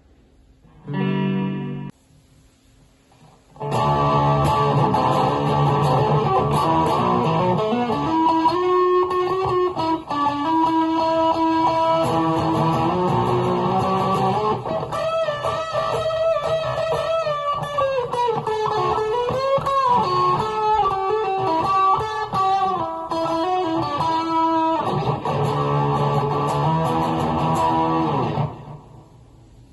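Electric guitar played through a Fender Mustang I modelling combo amp: a short chord about a second in, then from about four seconds in a long passage of held chords and a moving melody line, stopping near the end.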